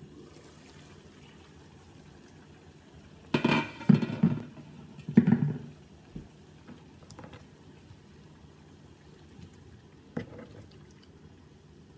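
Water boiling in a wok. Two loud clattering bursts a few seconds in come from the glass lid being lifted off the wok, and a short knock near the end comes from cut bamboo shoots going into the water.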